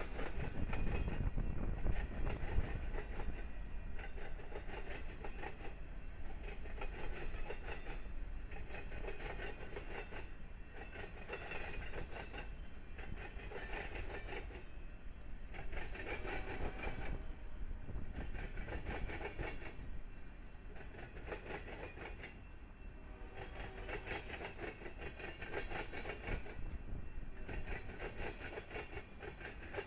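Union Pacific freight trains rolling past, their wheels clattering over the track in a repeating rhythm, with strong wind rumbling on the microphone.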